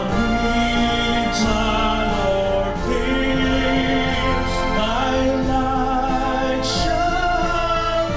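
A hymn sung in sustained, slowly moving notes by voices over instrumental accompaniment, in a demo arrangement that is not studio recorded.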